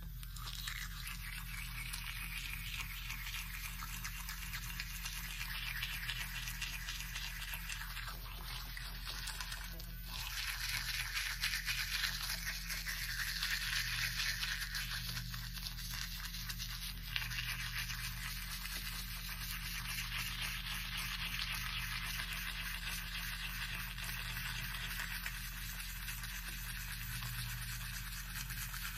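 Toothbrush scrubbing teeth through a mouthful of toothpaste foam: a continuous wet, scratchy brushing that grows louder for a few seconds near the middle.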